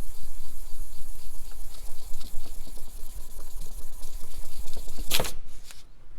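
Norton oil pump backing plate being rubbed back and forth on 1000-grit wet-and-dry paper wetted with WD-40, a steady gritty scraping as it is lapped flat to take out the gear imprint. One sharp knock comes about five seconds in, and the rubbing stops soon after.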